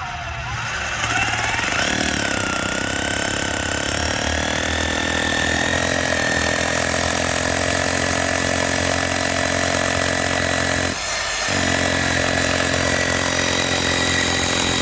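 Bosch GBH 18V-34 CF 18 V cordless SDS rotary hammer drilling into concrete. The motor spins up over the first second or two, then runs with a steady hammering drive, with a brief break about eleven seconds in before it picks up again.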